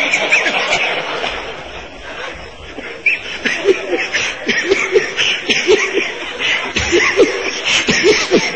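A large crowd laughing and chuckling together, many voices overlapping. The laughter eases a little about a second in and swells again from about three seconds on.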